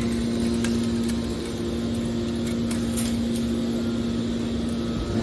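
Car body baler's motor and hydraulic pump running with a steady hum, with a few faint clicks.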